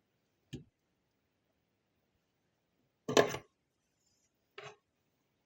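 A few short knocks and clicks of small tools and parts handled on a workbench: a faint one about half a second in, a louder one about three seconds in, and a lighter one near the end.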